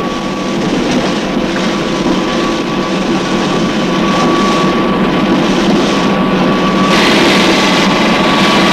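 Heavy machinery running: a steady mechanical din with a constant high-pitched whine, growing a little louder and harsher about seven seconds in.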